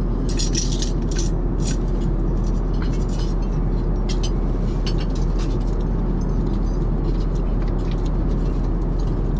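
Steady low rumble of an Airbus A380 cabin in flight, with light clinks of dishes and cutlery, thickest in the first two seconds.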